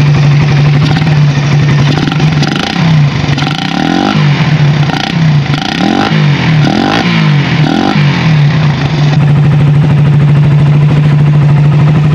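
Suzuki Raider 150 carb's single-cylinder four-stroke DOHC engine idling, running on a newly fitted DIY ram-air intake on its 28 mm carburettor. It is given a series of short throttle blips between about 2.5 and 8 seconds in, then settles back to a steady idle.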